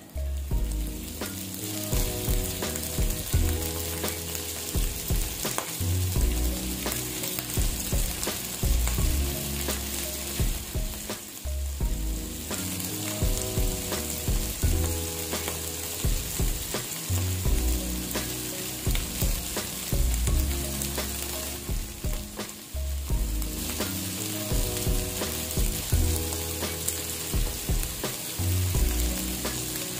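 Shell-on shrimp sizzling steadily in hot oil in a nonstick wok, turned with a spatula near the end.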